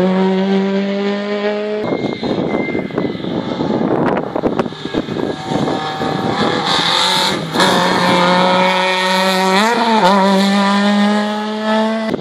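Rally car engine running hard at high revs, its pitch held steady. A rougher, noisier stretch comes between about two and six seconds in, and the pitch briefly drops and climbs again near the end, as at a gear change or a lift off the throttle.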